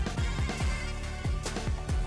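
Background music with a steady drum beat over bass.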